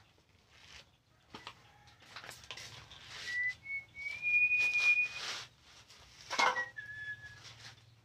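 A high whistled tone that steps up in pitch and is held for about two seconds, then a shorter, lower whistle near the end, over bursts of rustling and handling noise.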